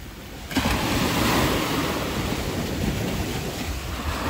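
Sea surf washing on a beach, getting suddenly louder about half a second in as a wave breaks and rushes up. Wind rumbles on the microphone underneath.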